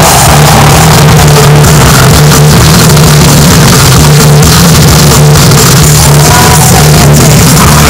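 Loud music over a stadium sound system, with a heavy, throbbing bass line, so loud that the recording is overloaded throughout.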